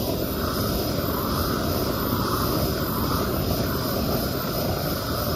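Handheld gas flame torch burning at high output, a steady rushing noise with no break.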